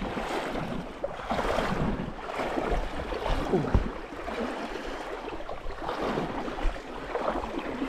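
Shallow river water splashing and rushing close by, rising and falling unevenly.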